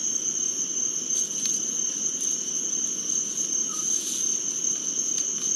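Chorus of night insects trilling steadily at a high pitch, with a second, lower steady trill beneath it.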